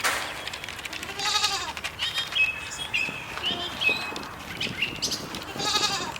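A goat bleating twice, one quavering call about a second in and another near the end, with small birds chirping in between.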